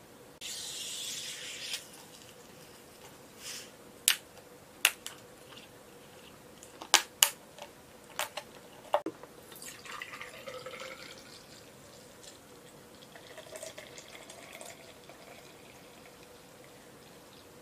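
A brief hiss, then a series of sharp clicks and cracks as a plastic bottle's cap is twisted open. Then an amber drink is poured into a tall glass, splashing, with a tone that rises as the glass fills.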